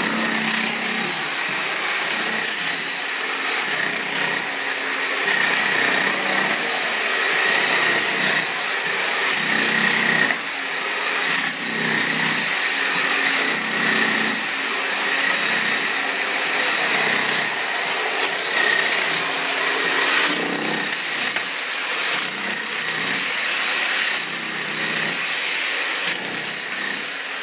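Electric jackhammer breaking up the cave's rock floor, running loudly in repeated bursts about every second and a half.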